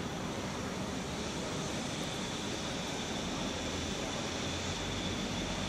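EF65 DC electric locomotive hauling a Shiki 1000 heavy-freight car, rolling slowly into the station with a steady mechanical hum; a deeper low hum comes in near the end as it draws closer.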